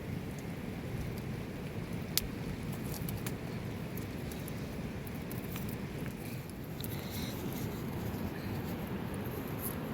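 Steady heavy rain, with scattered sharp taps of drips; the loudest tap comes about two seconds in.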